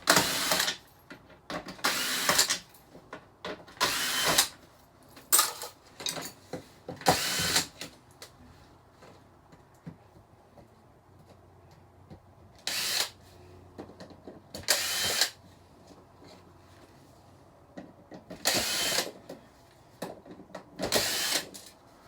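Cordless drill-driver backing screws out of a flat screen TV's plastic back cover, in about nine short bursts of under a second each, with a long pause midway.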